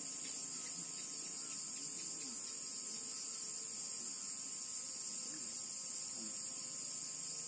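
Steady high-pitched buzzing chorus of night insects, unchanging throughout, with a couple of thin steady tones underneath.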